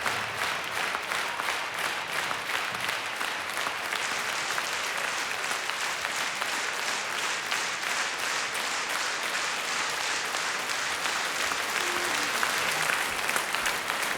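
Large concert audience applauding steadily, a dense even clapping with no music over it.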